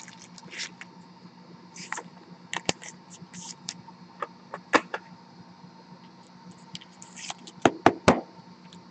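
Trading card being handled and slipped into a clear plastic sleeve: scattered light clicks and short rustles of plastic and card, with a few sharper clicks near the end, over a faint steady low hum.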